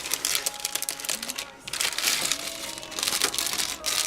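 Packaging crinkling and rustling in irregular bursts as a user manual is worked out of its wrapping by hand.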